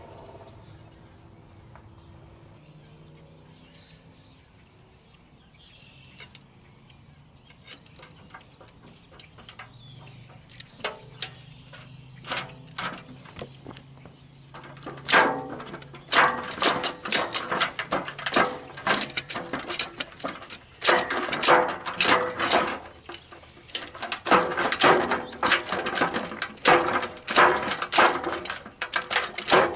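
Long steel pry bar working the old grease seal out of a semi truck wheel hub: a low background hum for the first half, then from about halfway through rapid, irregular metal clanks and scrapes as the bar strikes and levers against the hub and seal.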